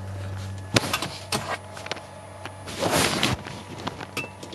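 Camera handling noise: several sharp knocks and clicks, and a brief rustle of fabric rubbing the microphone about three seconds in, over a low steady hum.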